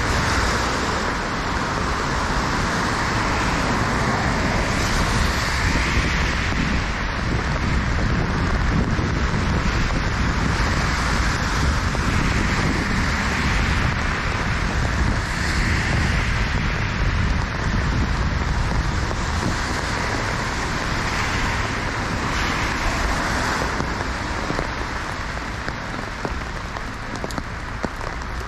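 Steady hiss of rain and traffic on a wet city street, swelling every few seconds as cars pass.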